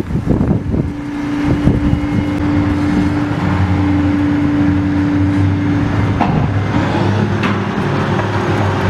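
Mobile crane's engine running steadily with a whine while the crane holds a heavy section of tree trunk. Its note changes about six seconds in.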